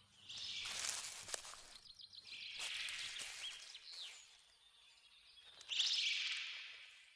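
A strange, melodious creature call from a small, unremarkable thing, likened to the song of the sirens: three airy, high swells, each rising and fading over a second or so, with a few faint gliding tones in the middle one.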